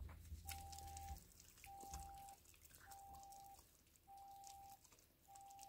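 Five steady electronic beeps of one pitch, each about three-quarters of a second long and one every second and a bit, from an unseen device. Beneath them, faint splashing of water poured from a metal jug over hands.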